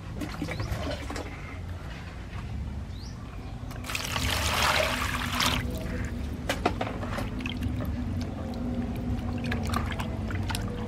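Water poured into a plastic basin over eels, a rush lasting about a second and a half about four seconds in, followed by splashing and sloshing as hands wash the eels in the water.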